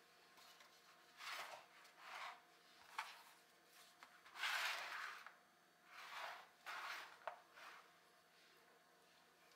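Soft kitchen handling sounds on a countertop: several brief rustling, brushing swishes and a couple of light clicks as items are moved about by hand.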